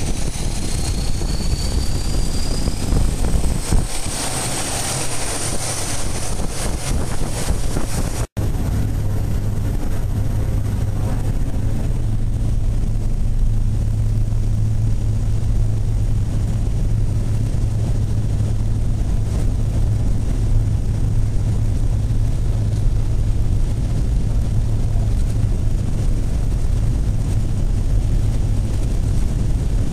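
Floatplane's engine and propeller running at high power, heard from inside the cabin as the floats run across the water. The engine climbs with a rising whine in the first few seconds, cuts out for an instant about eight seconds in, then holds a steady low drone.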